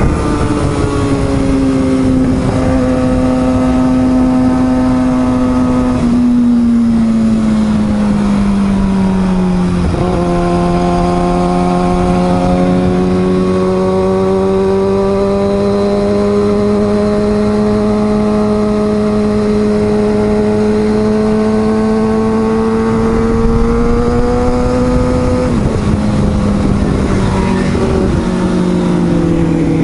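Sport motorcycle engine running under way at a steady cruising pace. Its pitch falls about six to ten seconds in with a sudden break near ten seconds, holds and slowly climbs, then drops again near the end as the rider changes speed and gear.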